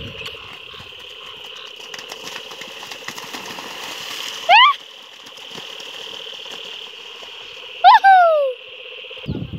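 Loud, high whooping herding calls from a person close by, urging cattle on: one sliding up about four and a half seconds in, and one near eight seconds that slides up and then falls. Underneath runs a steady, pulsing chorus of frogs from the flooded ground.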